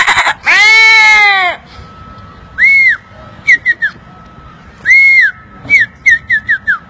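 A man imitating a small puppy with his mouth: one loud yelp, then high, whistle-like whimpering squeaks, two longer ones and a quick run of short ones near the end.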